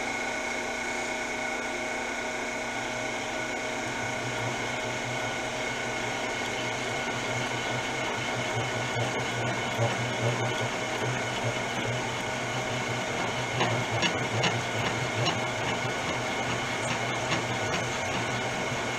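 Bench-top combo lathe/mill spindle running steadily with a 2-inch boring head, its motor giving an even whine made of several tones. The boring bar takes a light finishing cut of about two thousandths in a bore, the sound turning a little rougher with scattered light ticks in the second half.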